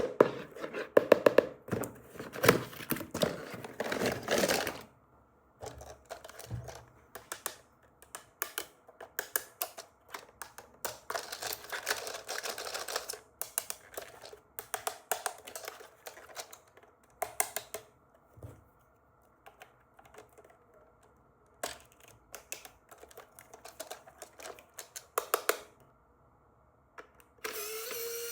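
Toy packaging being handled and unwrapped by hand: an irregular run of clicks, crackles and rustles with short pauses. Near the end a steady whir with a rising tone starts.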